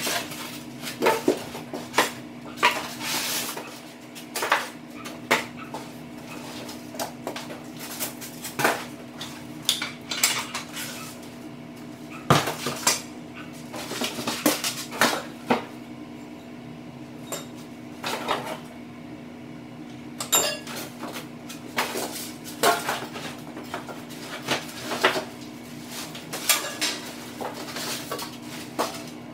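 Flat-pack table parts clattering and clinking as they are pulled out of a large cardboard box, with irregular knocks and bits of cardboard and styrofoam scraping and rustling between them.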